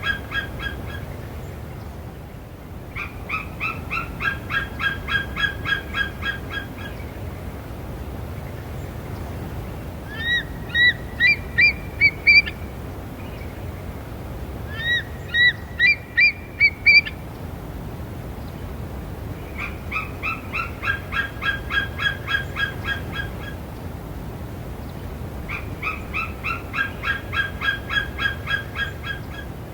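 An eagle calling in repeated series of rapid high piping notes, about three or four a second, each series lasting a few seconds. Between the series come two shorter bursts of about six louder squeals that slide upward in pitch.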